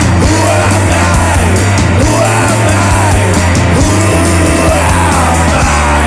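Rock band recording playing loudly: drums and bass under a lead line that slides up and down in pitch.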